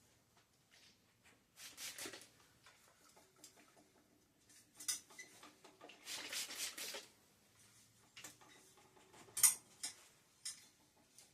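Hand work on a bicycle: several short scratchy rustles and a few sharp clicks, the loudest click about nine and a half seconds in.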